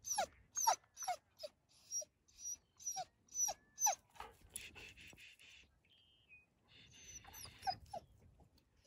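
Dog whining and yelping in short cries that fall in pitch, about two a second, pausing partway through and starting again near the end: a restless, worked-up dog.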